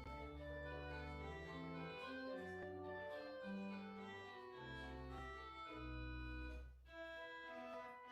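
Church organ playing slow, sustained chords over a deep pedal bass, the chords changing every half second or so, with a short break a little before the end.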